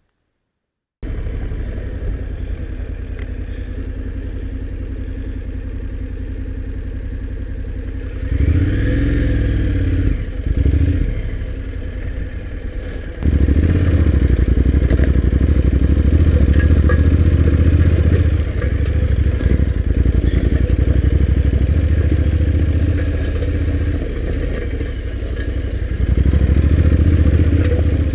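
Honda NC750X's parallel-twin engine running as the motorcycle is ridden off-road over a forest floor, starting suddenly about a second in. It grows louder twice for a moment a little past a third of the way, then steps up to a louder, steadier pull about halfway.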